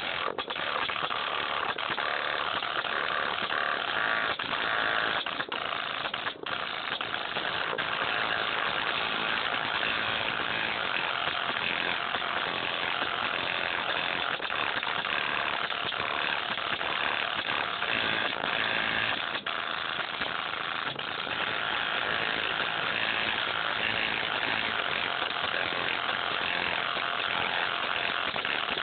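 A bare headphone driver held in the hand, overdriven with music until it breaks up into a steady, harsh distorted noise with no clear notes.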